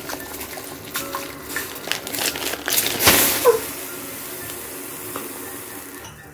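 A short rush of running water about three seconds in, loudest for about half a second, then running on more weakly, over background music.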